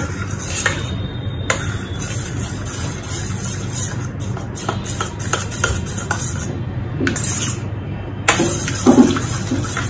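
Metal spoon stirring a creamy liquid in a steel bowl, with scattered light clinks and scrapes against the side, over background music.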